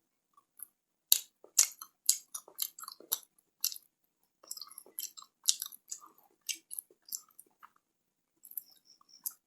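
Close-miked mouth sounds of chewing a Nestle Classic chocolate bar: crisp snapping bites and wet chewing clicks in three spells, pausing briefly around four and eight seconds in.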